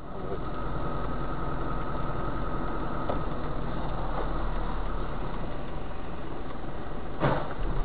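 Car engine and road noise, steady, with one short knock about seven seconds in.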